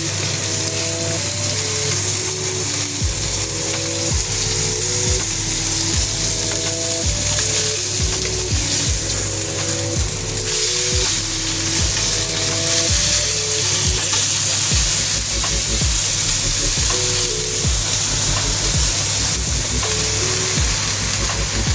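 Fish bones and a fish head frying in shallow oil with ginger in a wok: a steady loud sizzle, with a wooden spatula scraping and stirring as the pieces are turned.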